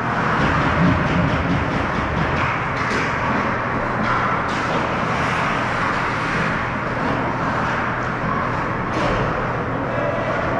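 Ice hockey game noise in a rink: a steady din with a low hum underneath and scattered sharp knocks, typical of sticks and puck on the ice.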